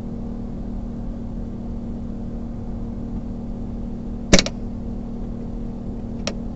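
A steady low mechanical hum, with a sharp click about four seconds in and a fainter click near the end from hands working at an old sewing machine's needle and presser foot.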